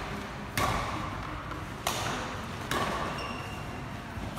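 Badminton rackets striking a shuttlecock in a doubles rally: three sharp hits about one to two seconds apart and a fourth at the very end, each ringing on in the hall's echo.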